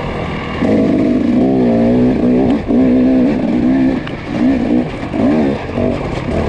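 Off-road dirt bike engine revving up and down as the throttle is opened and closed, over and over, rising and falling several times in quick succession from about half a second in.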